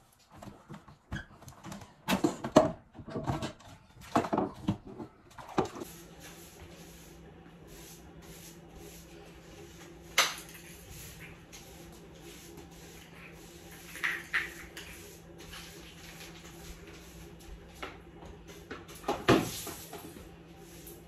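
Household cleaning sounds in a kitchen. A run of knocks and clatter of things being handled and set down comes in the first few seconds. Scattered single knocks follow, over a steady low hum that starts about six seconds in.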